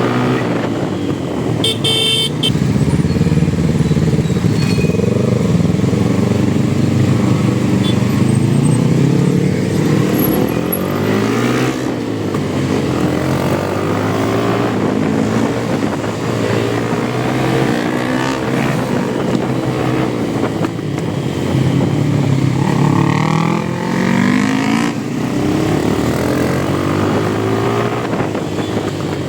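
Motorcycle engine running under way, its pitch rising and falling repeatedly as the rider opens the throttle and shifts through the gears. A short horn toot sounds about two seconds in.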